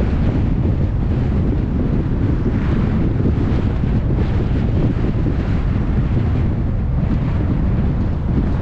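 Wind buffeting the microphone of a camera riding on a moving car, a steady low rumble mixed with road noise.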